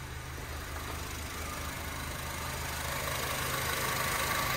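2007 Honda Civic's four-cylinder engine idling steadily, with the AC compressor clutch disengaged after the climate control was unplugged. The running noise grows gradually louder and hissier in the second half.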